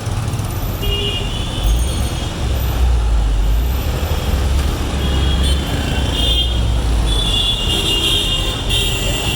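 Busy city road traffic: a steady low rumble of engines from passing vehicles, with short shrill tones sounding over it a few times, about a second in, around the middle and near the end.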